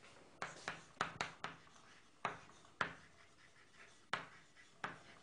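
Handwriting: a series of sharp taps and short scratchy strokes, about nine at an irregular pace, as something is written out by hand.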